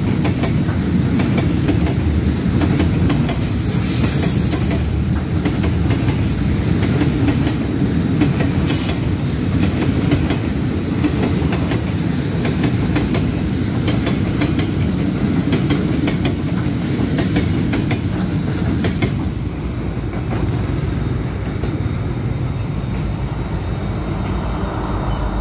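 Container freight wagons rolling past at close range: a steady low rumble of steel wheels on the rails with a rhythmic clickety-clack over the rail joints. Brief high wheel squeals come a few seconds in and again near 9 seconds, and the rumble eases a little about 20 seconds in as the last wagons go by.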